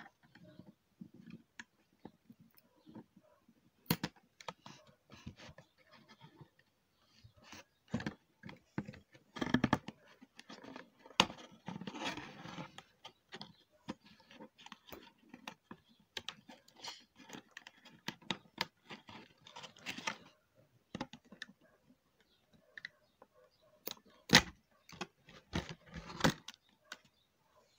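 Unpacking a boxed plastic fashion doll: a small metal cutting tool snipping at the ties and the plastic insert, with scattered sharp clicks and snips and a couple of longer rustling scrapes of packaging partway through.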